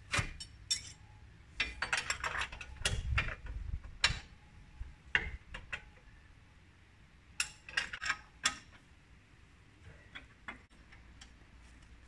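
Ratchet spanner clicking in several quick bursts as the bolts on a steel staircase are tightened. The clicking grows fainter near the end.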